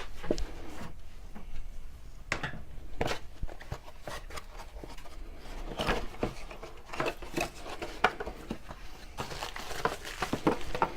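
Plastic packaging crinkling and rustling as it is opened, with scattered light clicks and knocks of small parts being handled.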